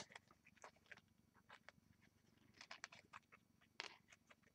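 Faint, scattered little clicks and rustles of a paper card and its gold cord being handled and adjusted by hand, close to silence.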